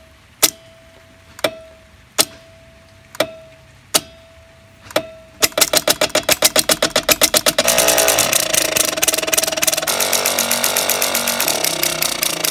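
Electromechanical clacking from a GPO Uniselector stepping switch and the 1930s GPO flap telephone indicators it switches in sequence: single sharp clicks about once a second, with a faint steady tone between them, then from about five seconds in a fast rattling run of about ten clicks a second that grows denser and louder.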